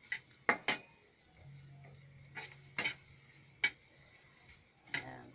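Cooking utensil clinking against a pan while stirring hotdog pieces being sautéed: a handful of sharp, irregularly spaced taps.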